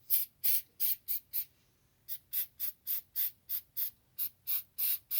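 An aerosol can of penetrating spray being fired in many quick short squirts, about three a second with a brief pause after the first five, to work penetrant into a seized brass torch fitting and blocked nozzle.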